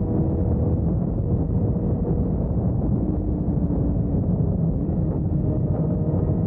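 Wind buffeting the microphone of a moving motorcycle, with the engine's steady drone underneath at cruising speed. The engine's pitch rises slightly near the end.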